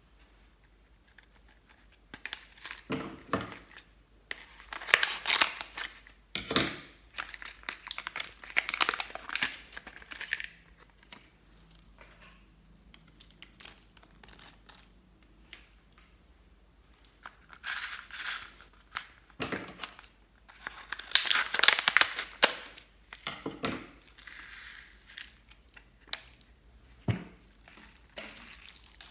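Clear slime being squeezed, stretched and folded by hand, crackling and popping with trapped air in irregular bursts, with quieter pauses in between, the longest in the middle.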